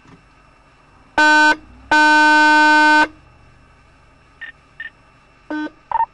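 A vehicle horn sounds twice at one steady pitch: a short blast, then a longer one of about a second. A few short, quieter electronic beeps follow near the end.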